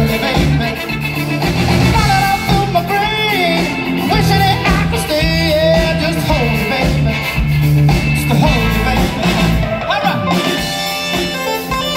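Live soul band playing: a man sings lead over electric guitar, bass and drums, with his voice sliding and bending between notes.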